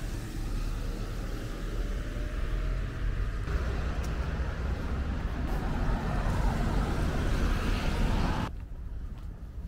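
Outdoor street ambience with the rumble of road traffic passing, heard in short clips that change abruptly about a third of the way in and again near the end.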